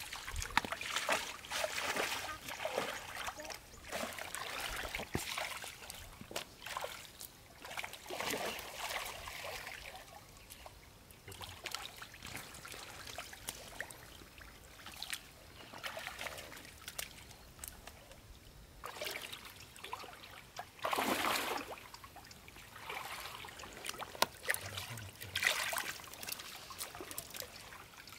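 Muddy pond water splashing and trickling in irregular bursts, with a louder splash about three-quarters of the way through.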